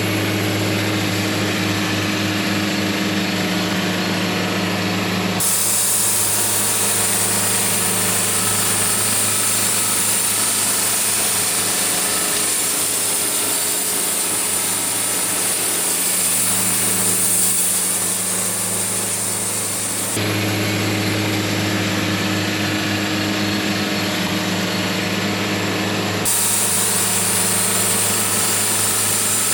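Portable band sawmill running, its engine droning steadily while the blade saws through a log. The sound changes abruptly three times.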